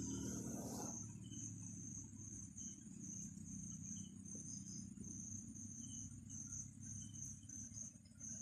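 Crickets chirping in a high, even pulsing trill over a low steady hum. A rustle stops about a second in.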